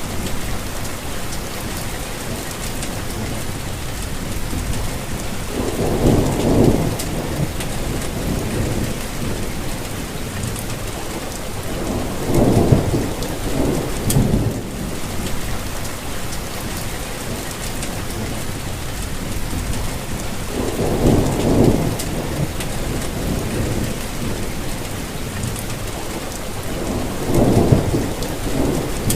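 Steady rainfall, a constant even hiss, with four low rumbles swelling up and dying away at intervals of six to nine seconds, each lasting a second or two.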